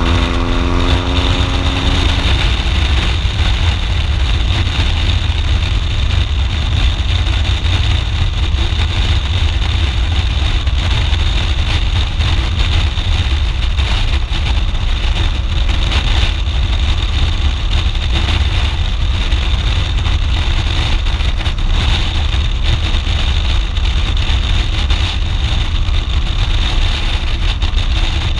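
Wind buffeting a helmet-mounted microphone at road speed on a BMW R 1200 GS Adventure. The boxer-twin engine's note is heard briefly at first and fades under the steady wind rush about two seconds in.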